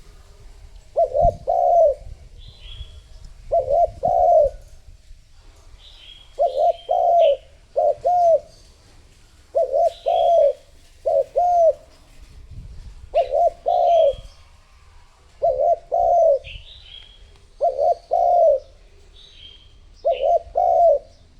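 Spotted dove cooing over and over in short phrases of two or three coos, a phrase about every two seconds: a decoy bird's call for drawing in wild doves. Faint high chirps from small birds sound between the phrases.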